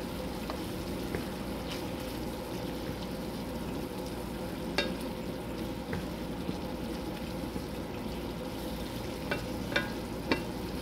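Ground beef and tomato mixture sizzling steadily in a nonstick skillet while a wooden spatula stirs it, with a few light taps and scrapes of the spatula against the pan, several of them near the end.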